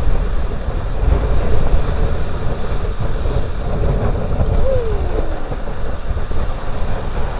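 Steady wind rumble on the microphone over ocean surf washing against shore rocks. A brief falling tone sounds about five seconds in.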